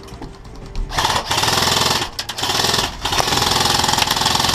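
Airsoft electric rifle firing on full auto: a fast mechanical rattle of gearbox and shots in three long bursts, the first starting about a second in.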